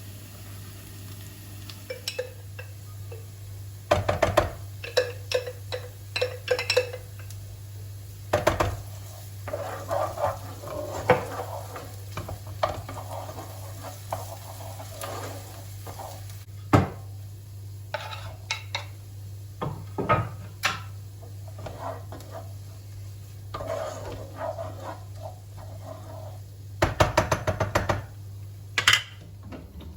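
Kitchen work sounds: dishes and metal utensils clinking and knocking irregularly, with some stirring, over a steady low hum.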